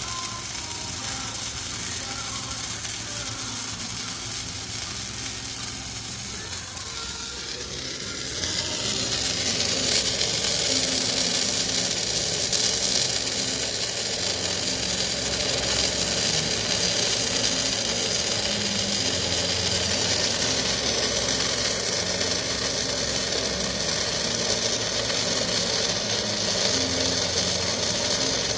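Electric arc welding: a steady crackling sizzle of the arc as a weld pass is laid, becoming much louder about eight seconds in and holding steady.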